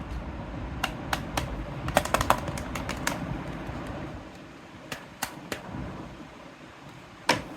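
Irregular sharp clicks and taps of small hard plastic toy kitchen pieces being handled, bunched in the first half with the loudest tap near the end, over a low rumbling background that fades about halfway through.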